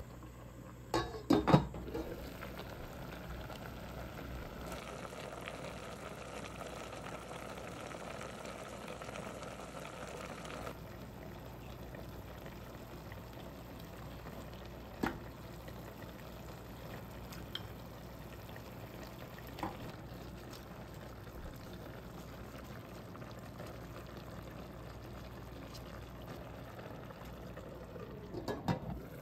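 Hotpot broth bubbling in an enamel pot on a portable gas stove: a steady simmering hiss. It is broken by a few knocks and clinks of utensils against the pot, the loudest cluster about a second in. Near the end comes a knock as the enamel lid is set on the pot.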